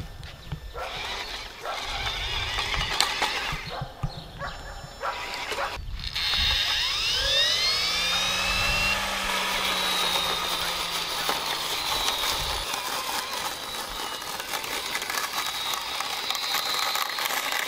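Homemade robot lawn mower on grass. Knocks and rattling come first, then about six seconds in its brushless blade motor spins up: a whine rising steeply in pitch over a few seconds, then running steadily.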